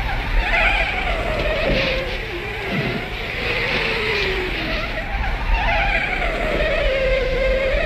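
Motor vehicle engine running hard in a film chase soundtrack, its pitch falling and rising slowly over several seconds as it revs.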